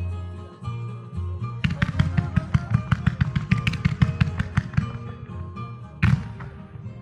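Music playing with a rapid volley of firework shots cracking in quick succession through the middle, then one single loud firework bang near the end.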